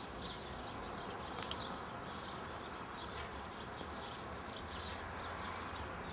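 Outdoor background of small birds chirping repeatedly over a steady low rumble, with one sharp click about a second and a half in.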